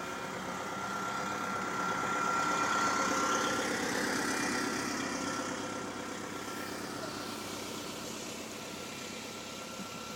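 A motor vehicle's engine running, with a steady whine in it. It grows louder over the first few seconds and then slowly fades.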